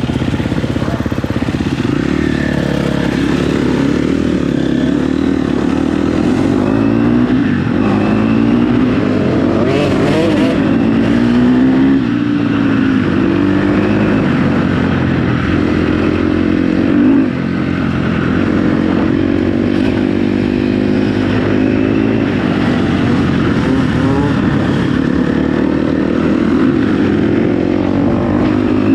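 KTM 250 SX-F dirt bike's single-cylinder four-stroke engine being ridden, its revs rising and falling over and over as the throttle is worked on and off.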